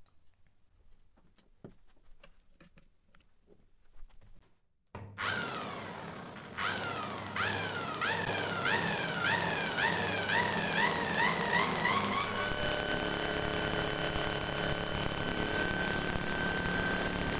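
Faint clicks, then about five seconds in a motor starts spinning a motorcycle magneto flywheel and the ignition coil's lead, fired by a home-built CDI, sparks to the flywheel in a rapid crackle of snaps. The running pitch sweeps up over and over at first, then settles into a steady whine.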